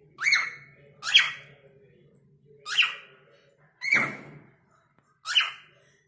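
Pet cockatiel giving five short, sharp squawks, a second or so apart.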